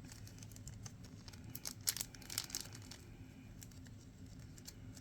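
Faint scattered clicks and light rustling of small parts being handled at a workbench, with a couple of louder clicks about two seconds in.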